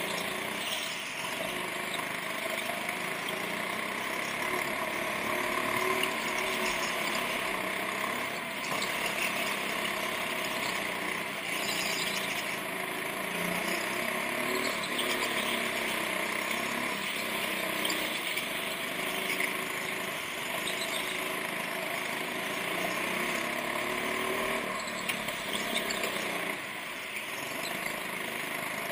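Go-kart engine heard from on board, its pitch rising and falling as the kart accelerates and slows through the corners, with tyres squealing at times.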